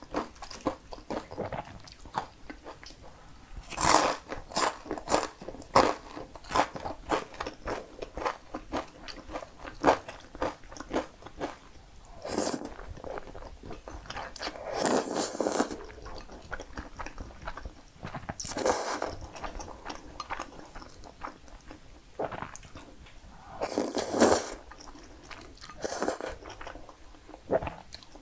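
Close-miked eating of cream pasta noodles: chewing with many short wet mouth clicks, broken by about five longer slurps spread through.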